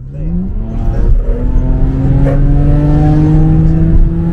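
Car engine heard from inside the cabin under hard acceleration: the revs climb quickly at the start, then hold a steady, slowly rising note.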